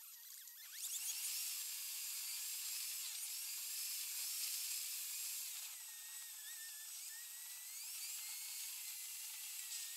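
A car's driving sound recorded from inside by a dashcam and played back 36 times faster, so the road and engine noise becomes a high, drill-like whining hiss with thin whistles gliding up and down. It grows louder about a second in.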